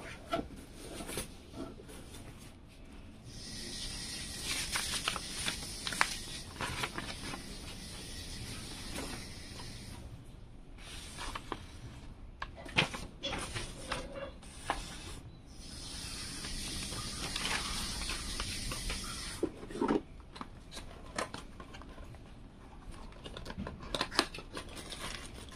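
Cardboard box packaging being handled by hand: a foam sheet, a folded paper manual and plastic wrap rustling and sliding, in long stretches of hiss-like rustling with scattered light taps and clicks.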